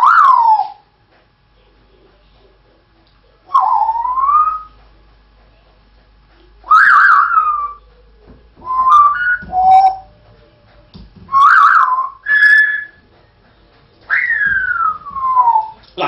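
Pet parrot whistling: about six short whistled phrases with pauses between, some gliding up and some down, the last a long falling whistle.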